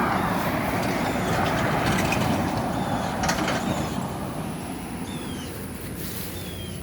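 A road vehicle passing by, its noise loudest in the first few seconds and then fading away. Birds chirp faintly now and then.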